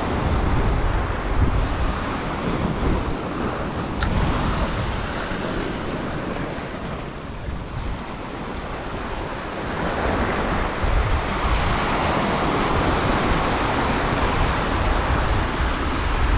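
Ocean surf washing in foaming sheets over a rocky shoreline ledge, with wind buffeting the microphone. The wash grows louder about two-thirds of the way through.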